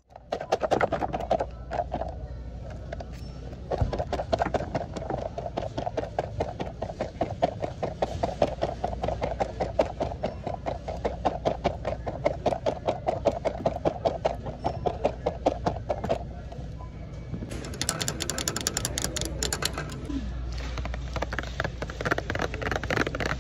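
Long fingernails tapping rapidly on plastic product packaging, many light taps a second with a hollow ring to them, broken by a few seconds of harsher scratching about two-thirds through.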